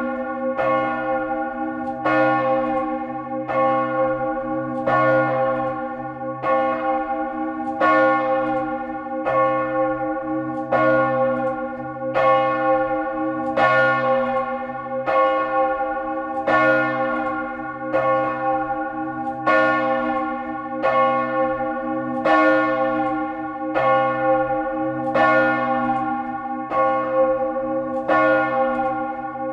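Great church bell swinging at full peal, its clapper striking about once a second. Each strike rings out over the bell's steady low hum.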